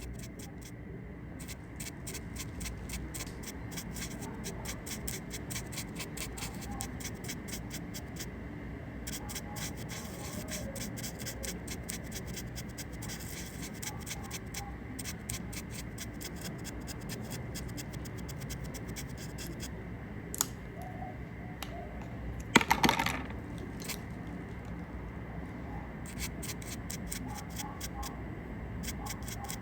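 Close-up ASMR scratching: quick runs of light scratches and strokes that come and go in bursts, with a louder knock and clatter about 23 seconds in.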